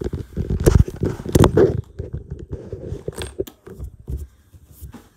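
Bedding and pillows rustling and thumping close to the microphone as a bed is being made, with sharp clicks and knocks among the rustling. Loudest in the first two seconds, then dying away near the end.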